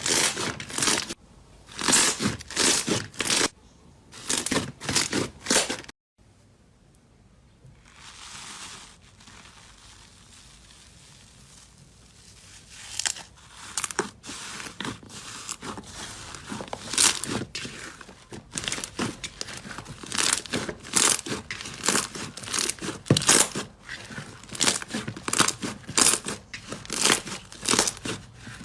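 Slime being squeezed and pressed by hand, giving quick crackling, popping bursts. About six seconds in it cuts off to a quiet stretch with faint hiss, and the crackling squishes start again a few seconds later, coming thick and fast.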